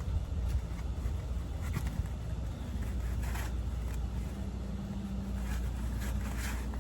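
Handling noise as a prop clown's arm and its costume sleeve are fitted: a few short rustles and scrapes over a steady low hum.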